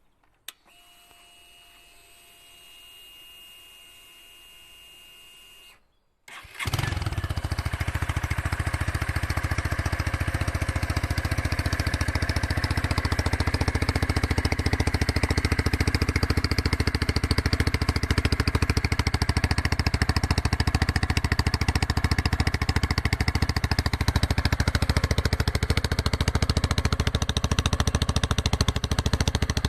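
A click and a faint steady whine, then about six seconds in the Motron Revolver 125 motorcycle's 125 cc engine starts and runs steadily.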